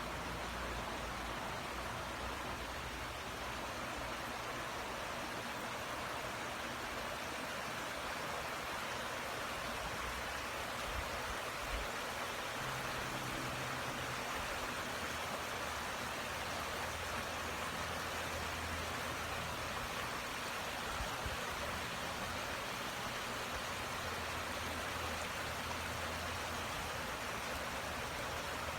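Creek running with snowmelt: a steady rush and trickle of flowing water.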